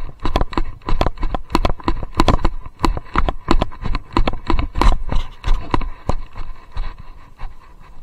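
Loose action camera knocking and rattling in its chest-harness mount, about three or four sharp clicks a second in time with the horse's stride, easing off somewhat in the last two seconds.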